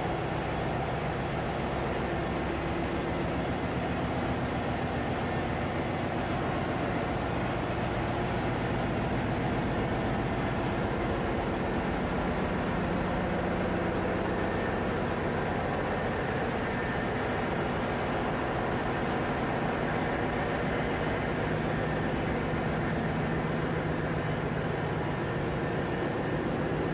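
Steady, dense drone of running machinery in a ship's engine room, with a low hum underneath that holds steady throughout.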